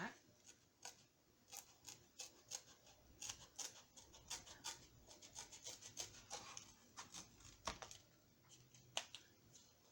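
Faint, irregular clicks, taps and rustles of small cardboard and paper pieces being handled at a craft table, with a couple of sharper clicks near the end.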